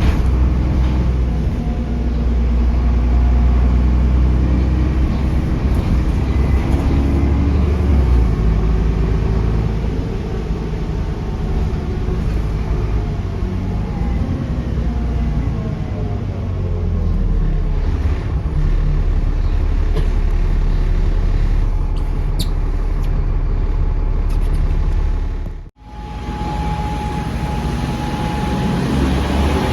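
Diesel bus engine running under way, its pitch rising and falling as it pulls through the gears. About 26 s in the sound cuts off sharply and comes back as the bus pulling away, with a steady whistle from the turbocharger over the engine.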